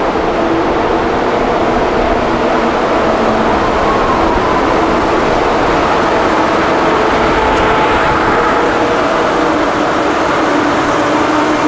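Deutsche Bahn ICE high-speed train pulling into a station platform, power car leading: a steady loud rumble of the train running in, with a few faint humming tones held through it.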